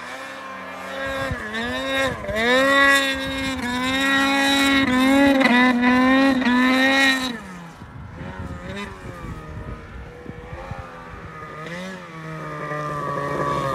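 Two-stroke mountain snowmobile engine revving hard in repeated surges, its pitch climbing and dipping as the sled carves through deep powder. About seven seconds in it drops back to a lower, uneven running, then builds again near the end as the sled comes closer.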